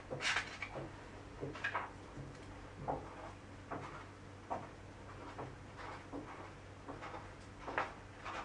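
Faint, soft clicks and knocks, roughly one a second, over a steady low electrical hum.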